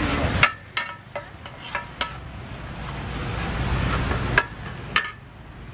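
Two metal spatulas scraping and clanking against a large flat wok as pad thai noodles are stir-fried, with about seven sharp, ringing clanks. Under them runs a steady noisy hiss of frying and passing traffic, which swells in the middle and drops off suddenly.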